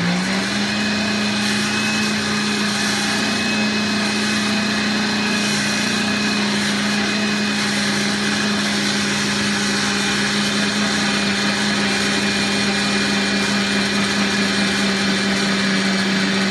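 Countertop blender switched on, its motor spinning up in a moment and then running at a steady pitch while it blends almond milk and chocolate protein-shake powder.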